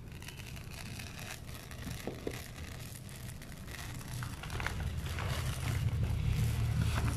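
Dry brown rice grains pouring into a plastic container partly filled with white rice, a grainy rustle that grows louder in the second half.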